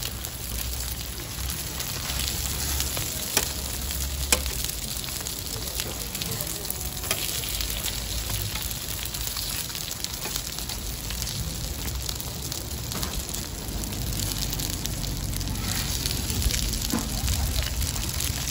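Pancakes sizzling steadily in oil on a flat iron griddle. A couple of sharp clicks come about three and four seconds in, from the metal tongs against the griddle.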